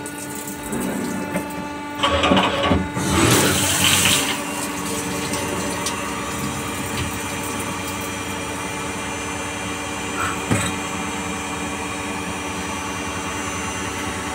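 CNC lathe running with a stream of cutting coolant splashing over the spinning chuck and workpiece, over a steady machine hum with several fixed tones. A louder rush of splashing and clatter comes about two seconds in and lasts about two seconds, and a short knock comes near ten seconds.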